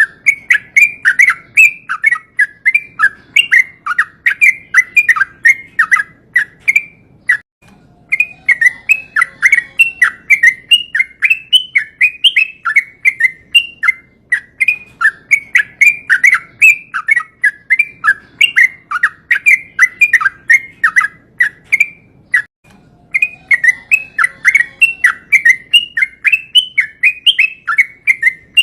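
Yellow-vented bulbul (trucukan) singing a long run of rapid, bubbly, pitch-bending notes, several a second, the long rolling song bird keepers call ropel. The run breaks off briefly twice, about 7 seconds and about 22 seconds in.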